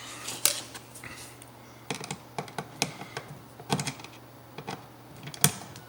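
Irregular light clicks and taps of small plastic outlet spacers and an outlet being handled, with one sharper click near the end.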